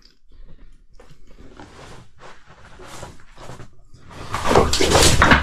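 Scuffing, scraping and rustling of someone clambering down into a stone pit, growing louder in the last second or so.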